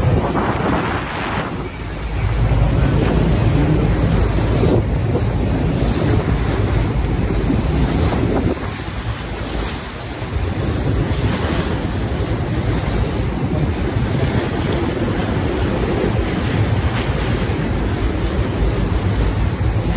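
Wind buffeting the microphone on the open deck of a moving boat, over the steady wash of river water along the hull, with a low rumble underneath. The wind noise eases briefly about two seconds in and again around nine seconds.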